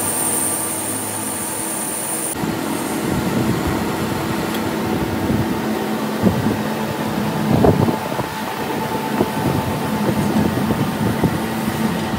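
Metal lathe running while it turns a steel coupling plate. A high whine sits over it until about two seconds in, then stops. After that comes the lathe's steady hum with irregular rattling knocks.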